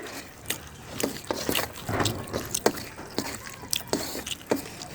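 Close-up wet eating sounds: chewing and lip smacking on rice with curry, a run of irregular sharp, wet clicks.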